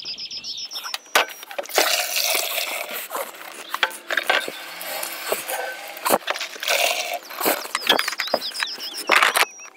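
A motorhome's cassette toilet tank being emptied into a chemical-toilet disposal basin: liquid splashing out in spells, with knocks of the plastic tank against the basin.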